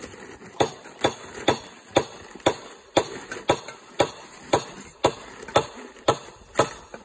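Steady hammering: sharp knocks at an even pace of about two blows a second, each with a short ring.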